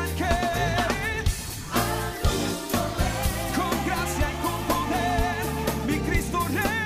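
Background pop music: a singer with a wavering voice over a band with bass and drums, on a steady beat.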